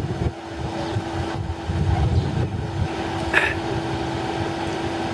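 Stretch Dodge Charger limousine idling at the curb, a steady low running sound with a constant hum.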